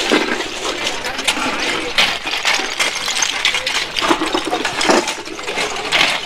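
Shovels scraping and digging into a pile of loose oyster shells, with shells clattering and clinking into metal buckets: a continuous, uneven jumble of sharp clinks and crunches.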